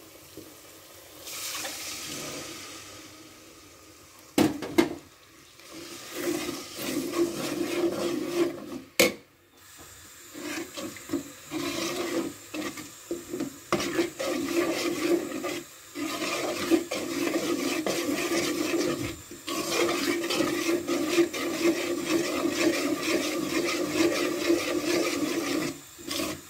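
Metal spoon stirring and scraping a thick curd-and-spice gravy in a metal pot as it fries and sizzles, in quick steady strokes for most of the clip. Near the start there is a hiss as the sour curd goes into the hot masala, and two sharp knocks.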